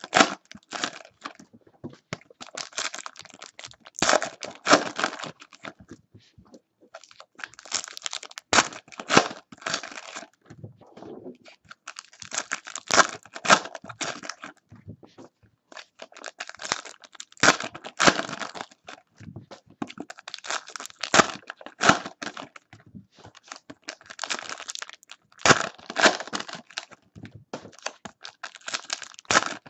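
Foil wrappers of Panini Prizm basketball hobby packs being torn open and crinkled by hand, in bouts of crackling every few seconds as one pack after another is ripped open.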